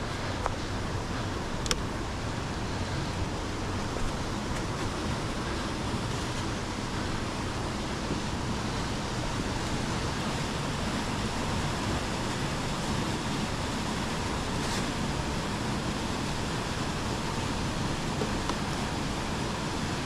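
Waterfalls rushing: a steady, dense wash of falling water, with a couple of faint clicks along the way.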